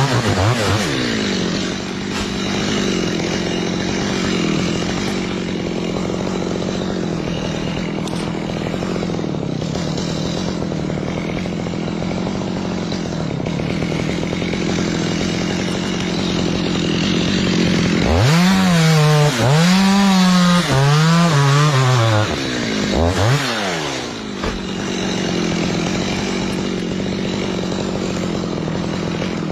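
Chainsaw engine running at a steady speed, then revved up and down several times in quick succession about 18 seconds in, before settling back to a steady run.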